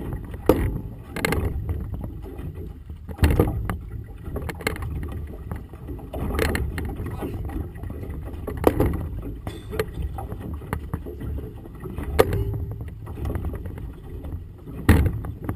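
Cloth signal flags flapping and snapping in gusty wind right beside the microphone: irregular sharp cracks every second or two over a low wind rumble.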